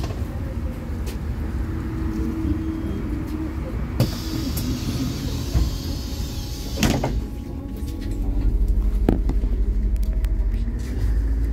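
MAZ-216 bus's diesel engine running at a stop, with a hiss and a clunk from the doors closing about four to seven seconds in. The engine then grows louder as the bus pulls away, with a slowly rising whine near the end.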